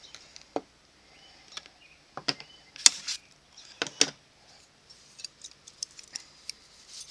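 Metal hand tools, scissors and plier-type hole punches, clinking and clattering as they are picked up and handled. It is an irregular scatter of sharp clicks, loudest about three and four seconds in.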